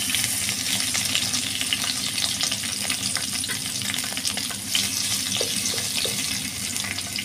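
Bay leaves sizzling and crackling in hot oil in a kadai. A steel spatula stirs them near the end, with a few light clicks against the pan.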